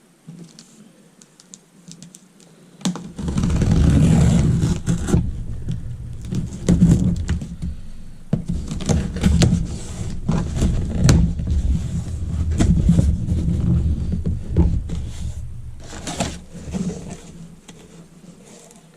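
A cardboard shipping box being handled and opened close to the microphone: a deep rumble of handling with many knocks, clicks and rustling, starting about three seconds in.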